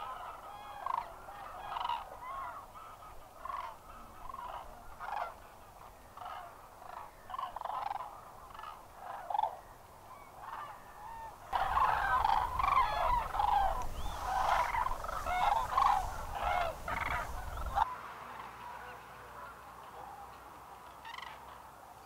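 A flock of common cranes calling, many short calls overlapping. The calling grows louder for several seconds in the middle, with a low rumble underneath during that stretch.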